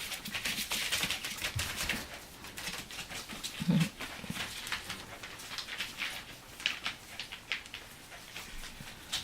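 Very young Cairn terrier puppies, about three and a half weeks old, making many short, high squeaks and whimpers, with a low thump near the middle.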